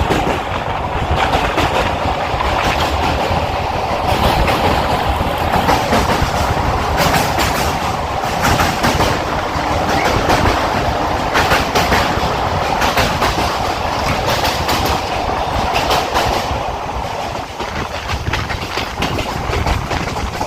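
Electric local train running at speed, heard from on board: a steady rumble and hum with wheels clattering over the rail joints.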